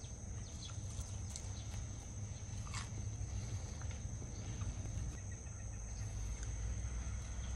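Close-up eating sounds: food being chewed and chopsticks clicking now and then, over a steady low rumble and a thin steady high-pitched tone.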